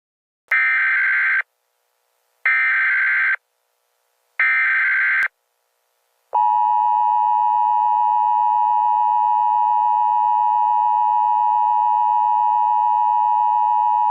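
Emergency Alert System weather alert: three short bursts of SAME digital header tones about two seconds apart, then a long steady single-pitched attention tone starting about six seconds in and lasting about eight seconds.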